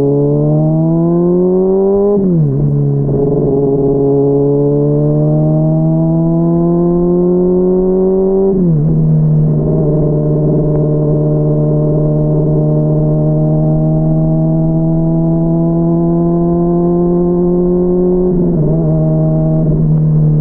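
Honda CBR600RR inline-four motorcycle engine under way, muffled from inside a backpack. The revs climb and drop sharply twice, about two and nine seconds in, as it shifts up, then hold at a steady cruise. Near the end the revs dip and waver before settling lower.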